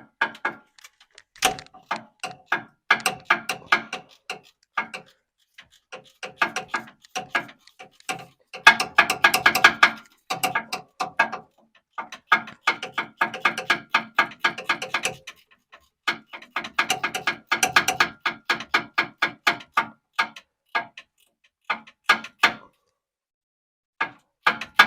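Hand ratchet clicking in quick runs as a nut is worked loose, the pawl's clicks ringing with a metallic tone; several spells of a few seconds each with short pauses between strokes.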